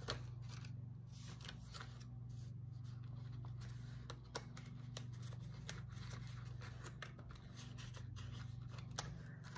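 Faint rustling and scattered light clicks of a paper cash envelope and a polymer banknote being handled as the bill is slid into the envelope, over a steady low hum.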